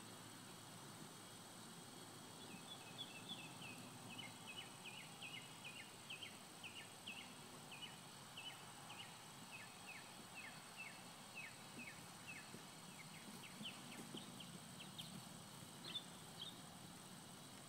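A bird calling in a long run of short, high, downward-slurred chirps, about two or three a second, over faint background hiss.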